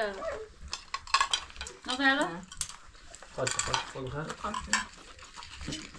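Ceramic plates and bowls clinking and tapping as dishes of food are handled and set down, a scatter of sharp clinks at irregular moments, with brief talk between them.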